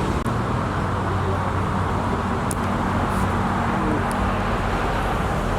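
Airbus A321 jet airliner's engines after touchdown, a steady rumble that keeps an even level throughout.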